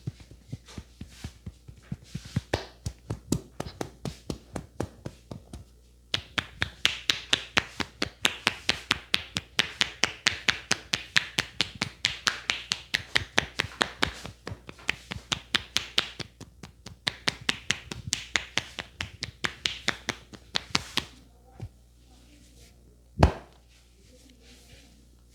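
Hands tapping and slapping rhythmically on a head in a traditional Indian head massage (champi), about four quick strikes a second. The strikes get louder about six seconds in and stop a few seconds before the end, followed by one single loud sharp crack.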